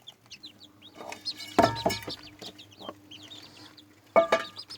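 A brood of four-day-old chicks peeping steadily as they feed, with two louder sudden sounds, about a second and a half in and near the end.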